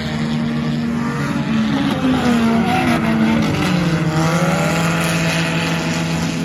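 Four-cylinder sport compact race cars running at speed in close company, several engine notes overlapping. Their pitch shifts up and down near the middle, then settles into a steady lower drone.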